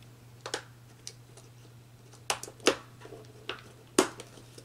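Plastic clicks and clacks as an auxiliary contact block is fitted onto a motor contactor and snapped into place, about six clicks with the loudest snap about four seconds in, over a steady low hum.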